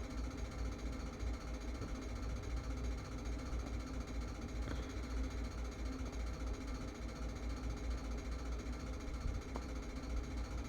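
A steady, fluttering low rumble with a faint hum over it, and a couple of faint ticks.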